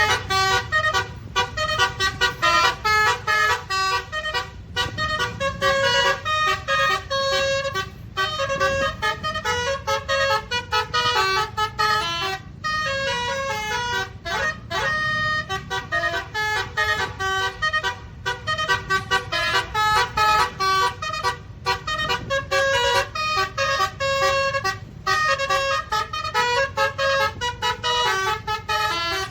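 Bus 'telolet basuri' multi-tone musical horn playing a fast tune of short honking notes, over a steady low rumble.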